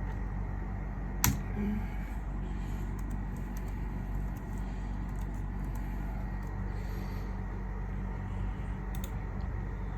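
Steady low electrical hum with a sharp click about a second in, scattered faint clicks, and another click near the end.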